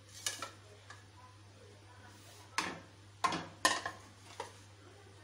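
Sharp knocks and clatters of a plate holding a raw chicken being handled and set down on the kitchen countertop. There are a few scattered knocks, with the loudest cluster between about two and a half and four seconds in.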